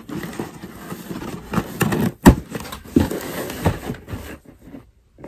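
Packaging being opened by hand: rustling and crinkling with a string of sharp clicks and knocks, the loudest a little over two seconds in, dying down near the end.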